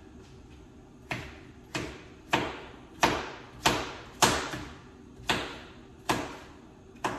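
Knife chopping sweet potato on a cutting board: a steady run of sharp chops, about one every two-thirds of a second, starting about a second in.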